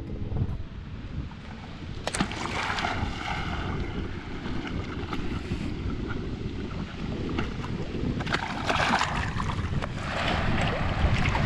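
Lake water splashing and sloshing around a camera held at the surface, with wind rumbling on the microphone. The splashes grow louder about two seconds in and again from about eight seconds on, as a dog paddles up close.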